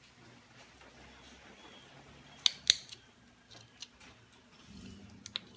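Sharp clicks of small flakes popping off the edge of a stone point as a pointed pressure-flaking tool is pressed into a notch: two loud snaps about two and a half seconds in, then a few fainter clicks.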